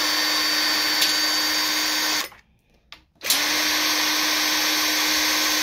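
Small impact wrench spinning out the variator cover screws with a steady motor whine. It stops a little after two seconds and starts again about a second later. The screws are already loose and give no resistance, so the tool spins freely without hammering.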